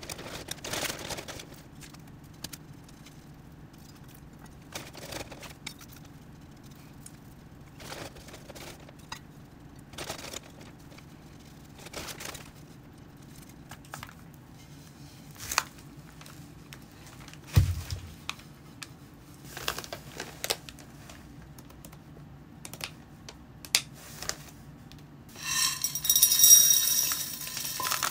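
Rustling of a plastic bag and newspaper, with scattered clicks as a garden trowel scoops potting soil, and one dull thump about two-thirds of the way in. Near the end, masato grit poured from a saucer rattles and hisses into a small ceramic pot; this is the loudest sound.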